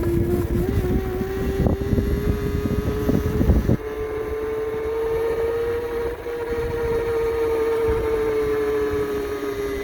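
A 36 V 500 W front hub motor on an e-bike whines under load on an uphill climb: a loud, steady whine with several overtones that rises slightly in pitch and then holds. This noise is the problem being shown. Low rumble and crackling, like wind or road noise, run under it for the first few seconds and stop suddenly about four seconds in.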